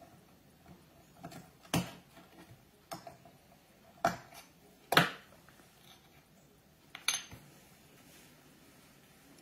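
Light clicks and knocks of small hard objects being handled on a desk: the plastic shell of a model locomotive and small modelling tools being picked up and set down. About five separate sharp clicks, the loudest about five seconds in.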